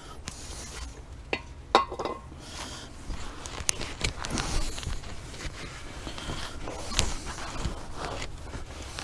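A cloth rag rubbing and wiping over the face of a new brake rotor to clean off any oil, with a couple of sharp clicks about one and a half seconds in and another about seven seconds in as the rotor is handled.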